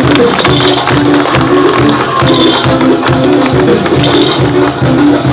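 Loud, rhythmic percussion-led music: a dense beat of drum hits under a short repeating melodic figure.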